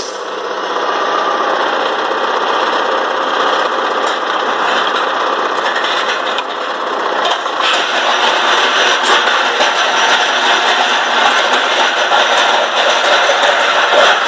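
Tractor engine running under load as it pulls a Triton Rockhopper seed drill through wet ground, with a steady rattle from the drill's steel frame and tines; the noise gets louder about seven and a half seconds in.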